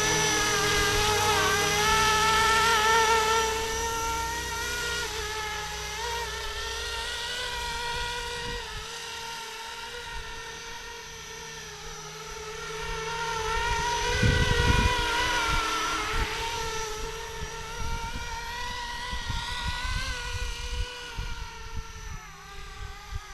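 Flishrc Little Bird 450 RC helicopter in flight: a whine of several layered pitches that wavers up and down with rotor speed. It grows louder about two seconds in and again around fourteen seconds, then fades toward the end.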